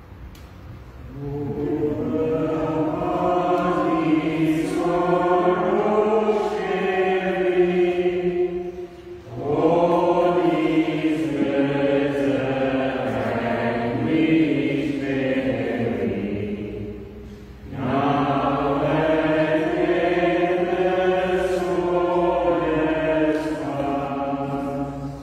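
Voices singing a slow hymn verse in three long phrases, each about eight seconds, with short breaks between them.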